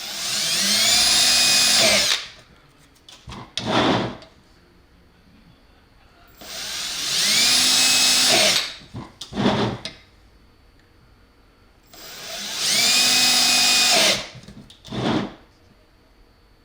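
Power drill run three times in bursts of about two seconds, its whine rising as it spins up, holding steady, then dropping as it stops, each run followed by a short blip of the motor.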